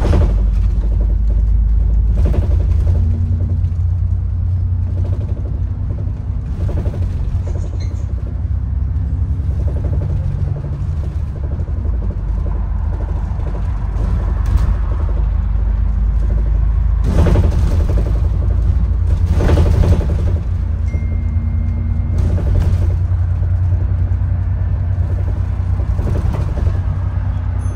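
A moving bus heard from inside: steady low engine and road rumble with a faint engine hum, broken by occasional brief knocks and rattles, the loudest a little past the middle.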